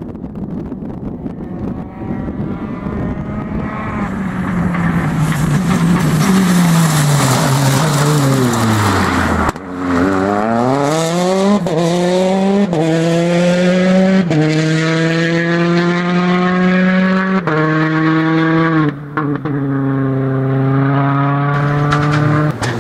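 Citroën DS3 R5 rally car's turbocharged four-cylinder engine driven flat out, the revs climbing and dropping sharply with each quick upshift as it accelerates through the gears. The sound breaks off abruptly twice where separate passes are joined.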